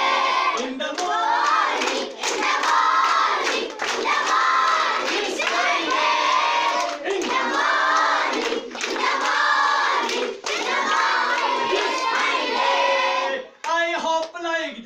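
A group of schoolgirls singing a song together in unison, phrase by phrase, with hand claps here and there between the lines. The group stops near the end and a single voice is heard.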